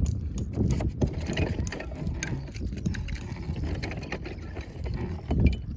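Wood fire crackling, with irregular sharp pops and snaps over a low rumble of burning, and a louder flare of sound near the end.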